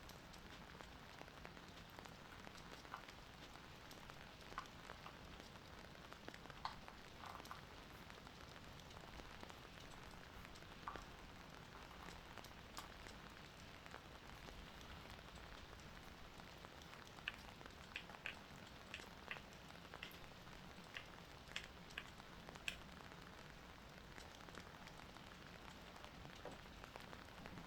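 Near silence: a steady faint hiss with scattered small ticks and clicks, a quick run of them about two-thirds of the way through. No snoring is heard.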